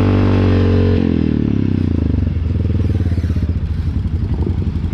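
Honda Rancher 420 ATV's single-cylinder four-stroke engine running steadily, then the throttle is let off about a second in and the revs fall away until it settles into a pulsing idle.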